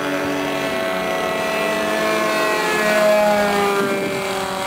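Radio-controlled model airplane's motor and propeller whining in flight. The pitch rises and falls as the plane changes throttle and passes by.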